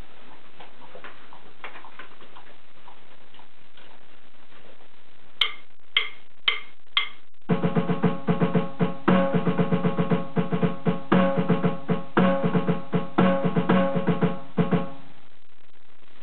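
Four count-in clicks about half a second apart, then music: a keyboard backing with snare drum strokes played on an electronic drum kit's snare pad, stopping about fifteen seconds in.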